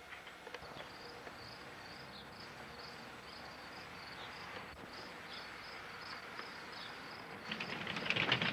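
Faint insect chirping, a regular high chirp repeating about three times a second. Near the end a louder run of clicking and rattling sets in.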